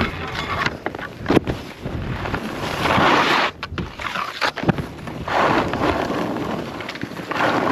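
Skis scraping and hissing over snow in swells as the skier turns, with wind buffeting the action-camera microphone and a couple of sharp knocks.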